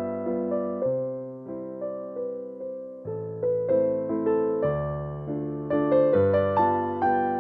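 Background piano music: a gentle melody over chords, each note struck and then fading.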